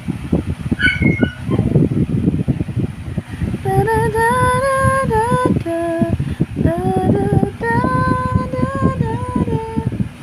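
A woman singing a slow melody of held, gliding notes, beginning about four seconds in, over a steady low rumbling background noise.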